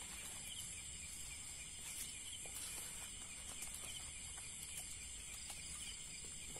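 Night insect chorus: a steady high-pitched trill with fainter chirping beneath it, and a few faint ticks and rustles.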